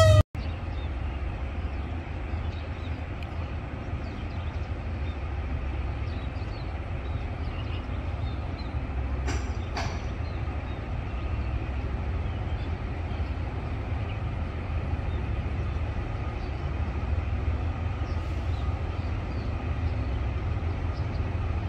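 Low, steady rumble of a train approaching in the distance, slowly growing louder. A single sharp click comes about nine and a half seconds in.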